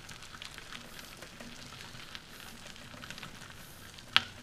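Trike tires rolling over a crushed-gravel trail, a steady crackle of small stones popping under the wheels, with one sharp click about four seconds in.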